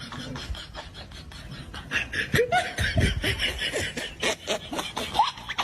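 People laughing in short choppy bursts, growing louder about two seconds in.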